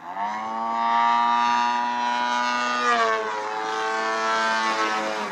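Radio-controlled aerobatic model plane's motor opening up to high power, a loud steady buzzing tone that rises quickly at the start, shifts pitch about three seconds in as the plane manoeuvres, and falls away just before the end as the throttle comes back.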